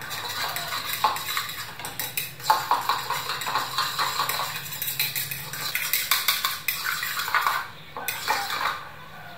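A fork beating egg yolks in a bowl, clinking rapidly against the bowl's sides, with a brief pause near the end before a little more beating.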